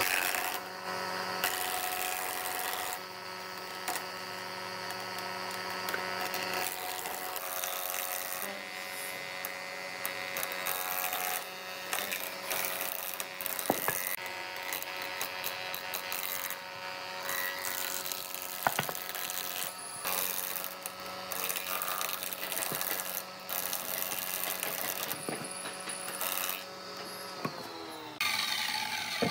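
Combination jointer-thickness planer running with a steady hum as a board is fed through its cutterhead and shaved to thickness. Near the end its pitch falls as the machine winds down.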